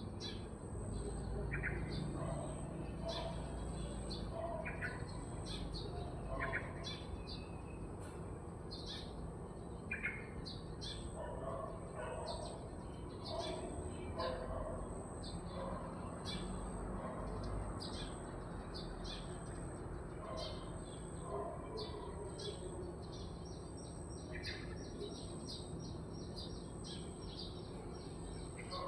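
Birds chirping: many short, high calls, several a second, with a quick trill of rapid notes near the end.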